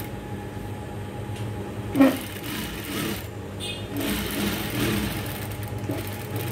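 Sewing machine running, stitching a seam through cotton fabric, with a steady motor hum. A single sharp knock comes about two seconds in.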